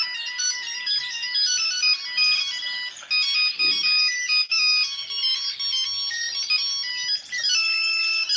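Mobile phone ringtone playing: a quick electronic melody of short, stepping notes, several sounding at once.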